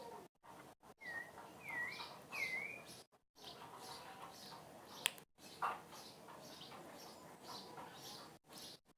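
A bird chirping faintly over and over, with three swooping calls that dip and rise again between about one and three seconds in. A single sharp click about five seconds in.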